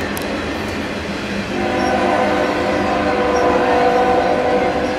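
Double-stack container cars rolling past with a steady rumble; about a second and a half in, a locomotive air horn starts one long, steady blast of several notes sounding together.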